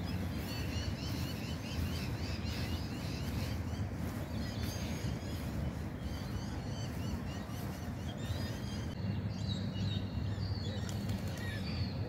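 Many birds chirping in quick, repeated high notes, over a steady low rumble.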